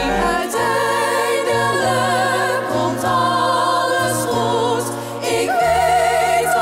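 Music: a choir singing long held, wavering notes over an orchestral accompaniment with steady bass notes.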